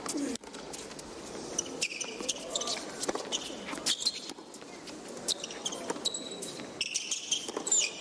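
A tennis ball being bounced repeatedly on a hard court before a serve, short sharp knocks at uneven intervals, over crowd chatter and calls.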